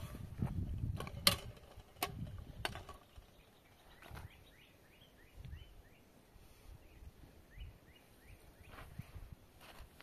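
Three sharp metallic knocks in the first three seconds, a metal ladle striking an aluminium frying pan during stirring, the middle one the loudest. Then a small bird calls with a quick run of short rising chirps for a few seconds.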